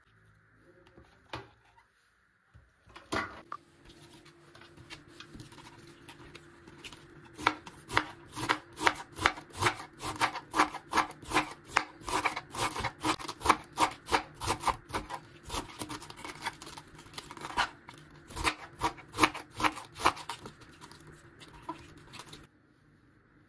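Kitchen knife slicing thin shreds off a raw red cabbage onto a cutting board: a quick, steady run of crisp crunching cuts, a few each second. It starts about three seconds in and stops suddenly near the end.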